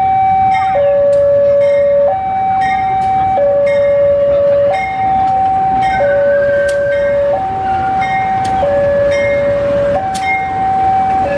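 Level-crossing warning alarm sounding a steady two-tone signal that alternates between a lower and a higher pitch about every second and a half, the warning that a train is approaching or passing. Train noise rumbles underneath.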